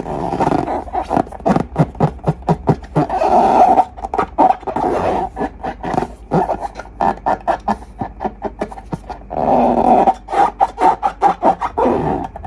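Slime and rubber balloons being squeezed and stretched by hand: a rapid run of sticky clicks and pops, with longer rubbery squeaking stretches about three seconds in and again near ten seconds.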